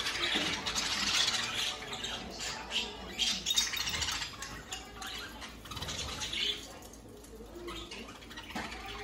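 A flock of about a hundred budgerigars chattering and squawking together, a dense mix of overlapping chirps and warbles, easing off briefly about seven seconds in.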